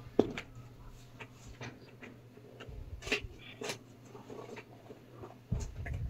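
Hands handling and opening a cardboard shipping box: scattered light taps, clicks and scrapes on the cardboard, a sharp click just after the start and a soft thump near the end.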